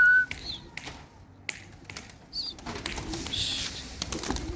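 Domestic pigeons on a rooftop: scattered sharp taps and clicks, faint low cooing and a brief high chirp. A steady whistle cuts off just after the start.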